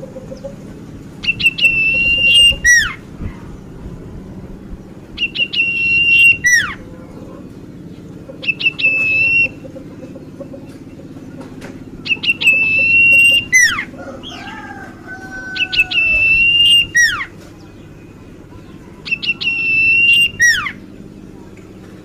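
Caged common iora (cipoh) singing a repeated phrase about every three to four seconds, six times: a held, clear high whistle that ends in a sharp downward slur. A softer, lower whistle comes between phrases about two-thirds of the way through.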